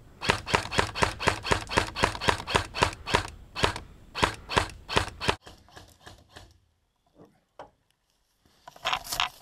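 Airsoft rifle firing rapid single shots, about five a second, for roughly five seconds before stopping. A brief rustle of movement follows near the end.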